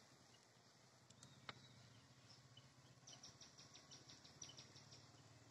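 Near silence: faint outdoor background with a low steady hum, a single faint click about a second and a half in, and a quick run of soft, evenly spaced chirps from a small animal, about seven or eight a second, in the second half.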